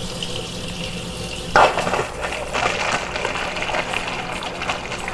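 Kitchen faucet running water into a rubber balloon held over its spout, filling the balloon. About a second and a half in, the water sound turns suddenly louder and fuller.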